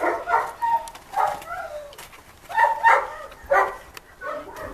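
A dog barking, about eight short barks in an irregular run, some coming in quick pairs.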